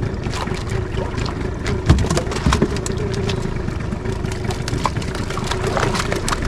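Small fishing boat's engine running steadily at idle, a constant hum under low rumble, with scattered light clicks and a couple of knocks about two seconds in.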